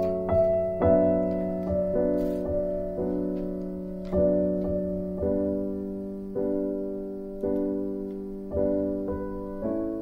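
Background piano music: slow chords struck about once a second, each ringing and fading before the next.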